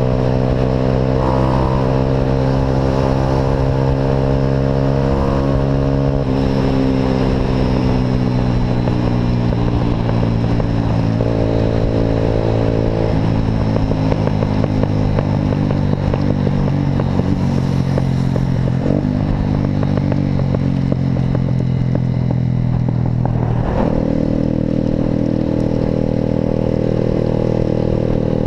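A vehicle engine running through an Atalla aftermarket sport exhaust, a loud steady exhaust drone whose pitch shifts a few times as the revs change while driving.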